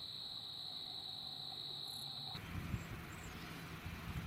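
Insect chorus: a steady high-pitched trill that cuts off abruptly a little over two seconds in. A low outdoor rumble with a faint steady hum follows.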